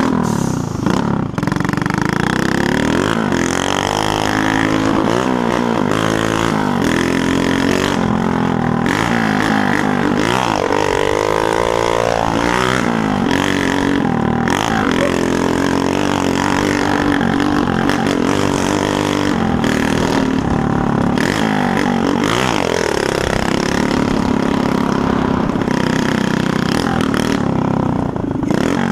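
Small motorcycle engine running loud through a broken exhaust while riding, the revs rising and falling several times as the throttle is worked.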